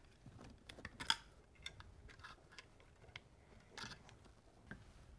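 Faint clicks and rustling from electrical cable being worked into a metal switch box, with one sharper click about a second in.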